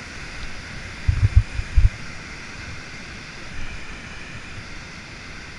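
Steady rushing roar of a waterfall and churning whitewater, with a few low thumps on the microphone a little over a second in.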